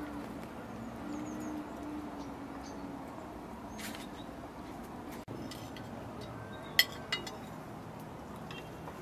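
A few sharp clinks of tableware over a quiet outdoor background, the loudest about two-thirds of the way through with a smaller one just after.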